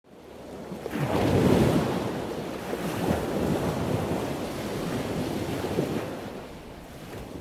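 A rushing noise like surf, with no tune in it. It swells in about a second in, holds, and eases off toward the end.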